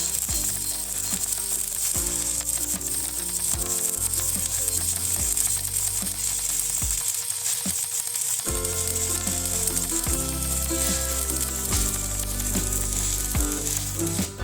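Electric arc welding: a steady, crackling sizzle of the welding arc laying a bead, with background music underneath.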